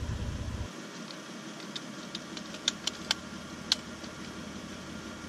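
Pickup truck engine idling with a low, even pulse, then shut off abruptly under a second in. A handful of sharp clicks and taps follow, from gear and footsteps on rocky ground.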